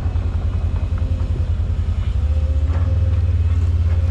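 A heavy engine running close by with a low, pulsing rumble that steps up a little in level after about two seconds and again near three.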